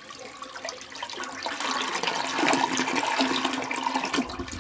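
A toilet flushing: water rushing out of the cistern into the bowl, growing louder about two seconds in.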